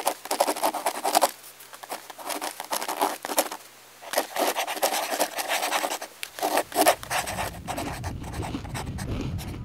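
Crayon scratching across paper in three stretches of quick strokes, with short pauses between them. A low steady rumble comes in about seven seconds in.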